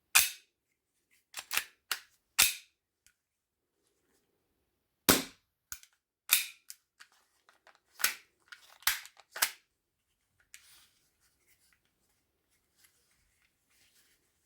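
Airsoft replica gun mechanism: about fifteen sharp mechanical clicks and snaps at irregular intervals, in small clusters, each with a short ringing tail.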